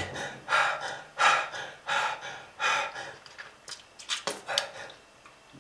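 A person breathing hard and labored: quick, noisy gasping breaths, one after another, about every half second to second.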